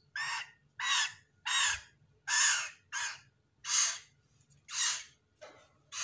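Three-week-old hill myna chick giving harsh, raspy begging calls, about eight in quick succession, each short, while being hand-fed.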